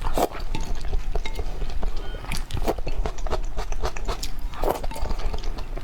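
Close-miked eating sounds: a person chewing and biting food, heard as irregular clicks and short mouth noises over a low steady hum.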